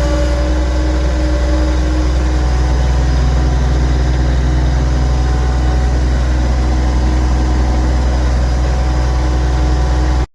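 A vehicle engine running at a steady speed: an even, deep rumble with a steady hum above it, cut off abruptly at the very end.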